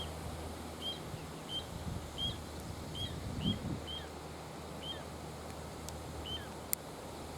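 Little ringed plovers giving short, repeated alarm calls, about two a second, over a low rumble of wind. A single sharp click sounds near the end.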